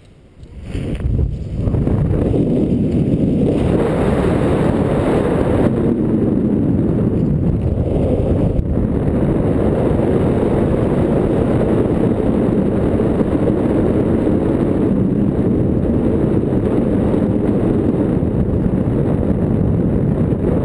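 Wind buffeting a GoPro camera's microphone while the skydiver descends under an open parachute: a loud, steady, low rushing noise that dips away briefly at the start, then holds.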